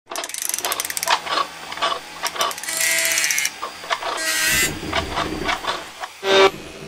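Mechanical sound effects for an animated logo: a quick run of ratcheting clicks, then scattered clicks and clacks of gears and slides, with two short rising whirs a few seconds in and a low rumble after the second. Near the end a loud pitched tone starts.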